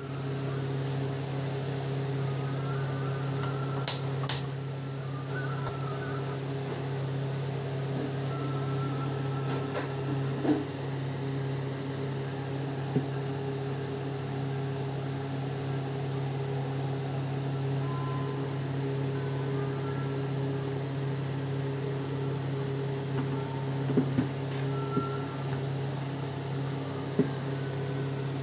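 A steady low machine hum, like a small fan motor, with a few sharp clicks and light taps, among them a quick pair of clicks about four seconds in and several more near the end.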